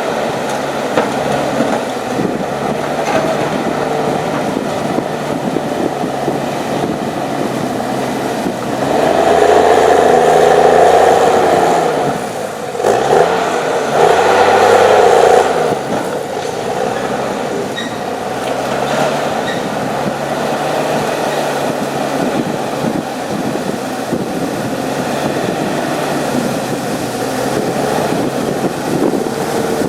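Diesel engine of an HSM 904 S forestry machine (6.7 litres, 238 hp) running under load. It revs up about a third of the way in, drops and rises again in pitch, revs hard a second time, then settles back to a steady working note.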